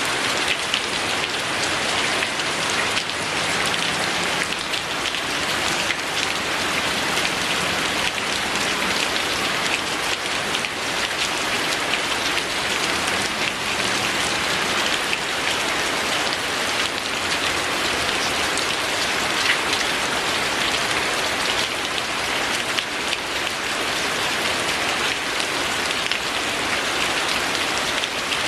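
Steady, gentle rain falling on a surface: an even hiss with many small drop ticks, unchanging throughout.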